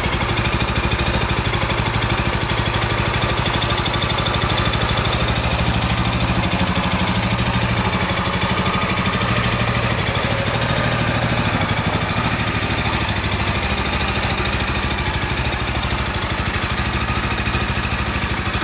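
Sinnis Retrostar 250's air-cooled single-cylinder four-stroke engine idling steadily.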